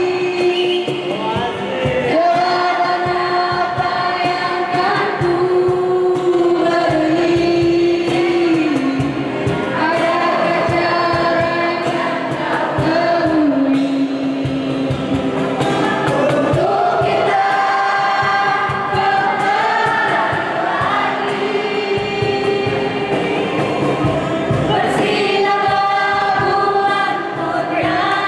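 A song sung over a strummed acoustic guitar, the voice holding and gliding between long sustained notes.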